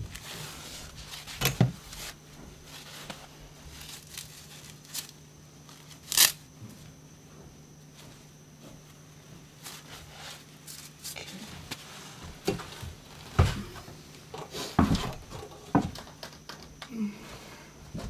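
Gloved hands tearing and crinkling material at a wall, with scattered sharp knocks, the loudest about six seconds in and a cluster near the end, over a faint steady low hum.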